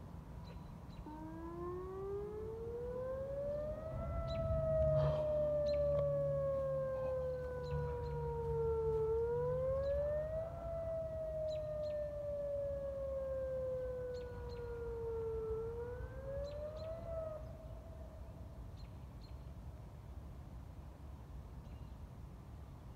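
Whelen outdoor warning siren sounding a short wail. Its pitch rises quickly and falls slowly twice. A third rise stops short, and the tone dies away about 17 to 18 seconds in.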